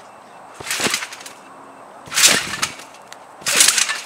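Trampoline mat and springs taking a jumper's bounces: three short, sharp impacts about a second and a half apart as he builds height for a flip.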